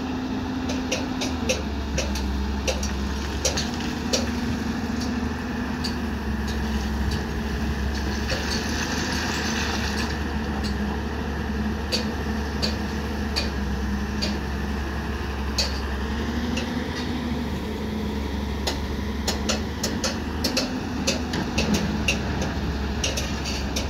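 CAT tracked hydraulic excavator's diesel engine running steadily with a low hum, its note dipping and rising a little now and then as it works, overlaid by scattered sharp clicks and knocks.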